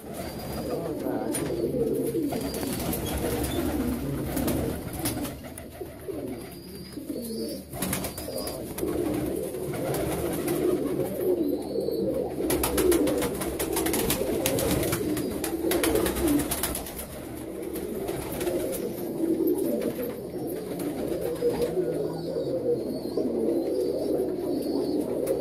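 A loft full of Sialkoti pigeons cooing, many birds at once in a continuous, overlapping chorus, with scattered short rustles and knocks.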